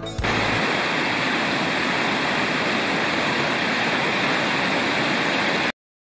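Small stream cascading down a rocky woodland gully in a series of little falls: a steady rush of water. It cuts off abruptly near the end.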